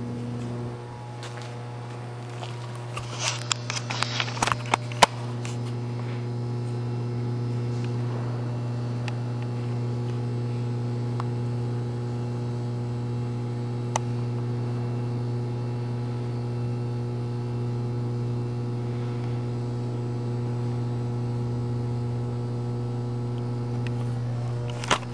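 Steady low hum with a ladder of higher overtones, unbroken throughout. A quick flurry of clicks and knocks comes about three to five seconds in, with a single click later.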